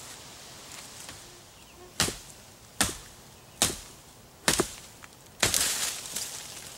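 Hatchet chopping into a fallen log: four sharp blows about a second apart, then a longer, rougher burst of noise near the end.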